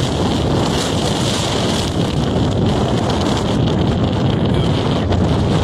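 Strong wind buffeting a phone's microphone: a steady, loud rush of wind noise.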